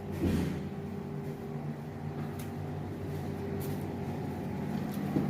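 A machine running with a steady low hum, with a few faint short clicks over it.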